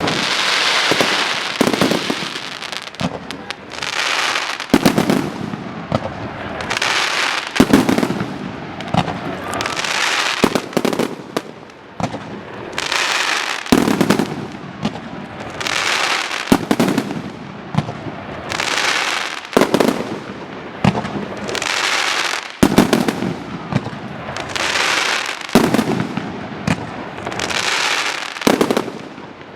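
Aerial fireworks display: shells burst with sharp bangs every couple of seconds, each followed by about a second of crackling that fades.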